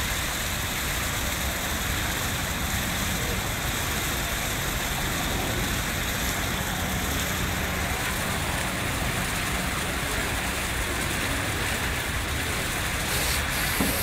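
Steady outdoor background noise: an even hiss over a low rumble, with a few faint clicks near the end.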